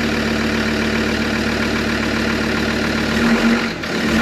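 Car engine idling steadily, its note changing about three seconds in.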